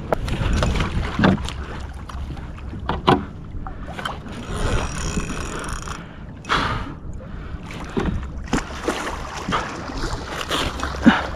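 Water sloshing and splashing against a fishing kayak's hull, under a steady low rumble of wind on the microphone, with scattered knocks from gear and a louder splash about six and a half seconds in.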